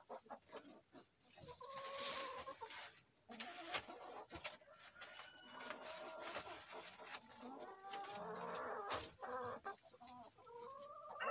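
Hens clucking, with drawn-out calls about two seconds in and again from about six to ten seconds, over light clicks and rustles of egg cartons being handled.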